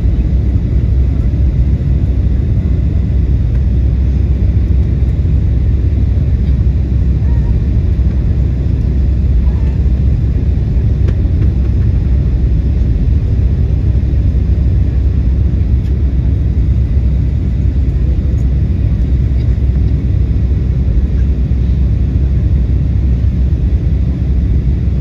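Steady, loud, low rumble of an airliner cabin in flight: jet engine and airflow noise heard from inside the aircraft.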